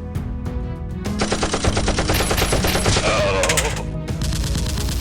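Rapid automatic gunfire, a long burst of shots in quick succession starting about a second in and stopping shortly before the end, over background music.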